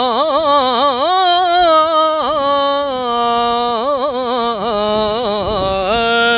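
A man singing the drawn-out, ornamented opening of a Punjabi Sufi kalam. His voice slides and curls between notes, then settles on one long held note near the end.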